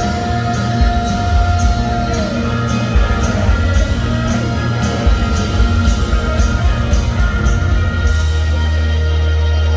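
Live rock band playing loudly, with drums striking about twice a second and a held guitar note that slides down about 2 s in. Near the end the drums stop and a low sustained chord rings out as the song ends.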